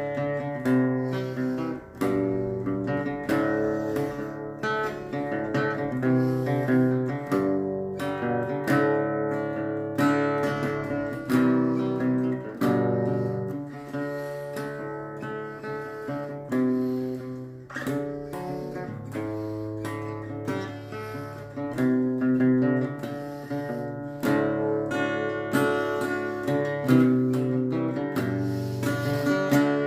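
Acoustic guitar played solo, a mix of strummed chords and picked notes in an improvised jam.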